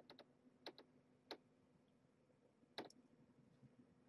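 Near silence: quiet room tone with a faint steady hum and a handful of short, faint clicks in the first three seconds.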